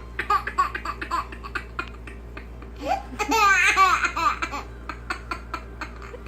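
High-pitched laughter in a string of short bursts, with a louder, longer fit of laughing about three seconds in.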